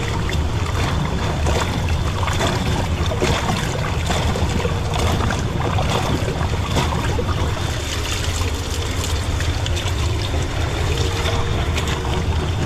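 Shallow mountain stream rushing over rocks, with close, irregular splashing as hands and feet stir powdered lime into the water.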